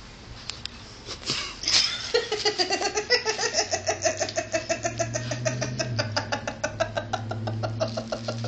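A person laughing hard: a long run of quick, rhythmic ha-ha bursts, about five a second, starting about a second in. A steady low hum sits underneath from about halfway.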